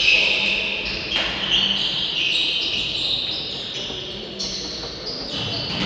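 Sports-hall sounds during play: shoes squeaking on the court floor and a ball being hit and bouncing.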